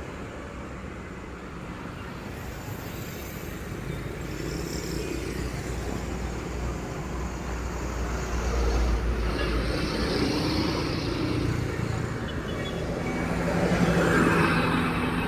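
Road traffic with a vehicle engine running and growing louder, loudest about fourteen seconds in, as a vehicle draws near.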